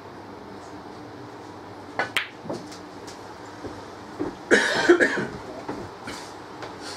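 Sharp clicks of snooker balls, two close together about two seconds in and a fainter one just after, over a low room hum. Then a spectator coughs loudly.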